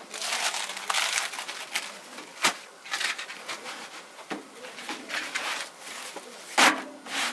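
Crisp, paper-thin Tiri flatbread sheets rustling and crackling in irregular bursts as they are lifted and stacked by hand on a metal griddle. There is a sharp knock about two and a half seconds in and a louder thump near the end.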